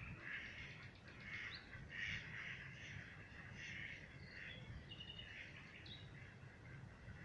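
Faint bird calls: a run of short, rough calls repeating roughly every half second, with a few thin high chirps between them, over a low rumble.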